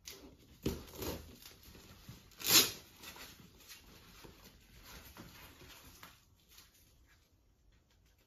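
Velcro straps on a cricket batting pad being ripped open and pressed shut as the pad is strapped onto a leg, with one loud rip about two and a half seconds in. A knock and some rustling of the pad come before and after it.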